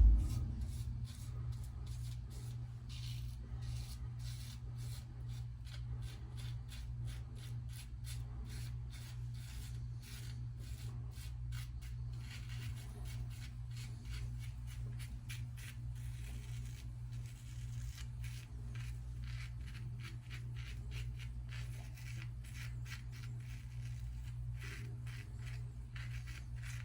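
Superior lather catcher safety razor cutting stubble on a lathered face in repeated short strokes: a scratchy rasping crackle. A steady low hum runs underneath.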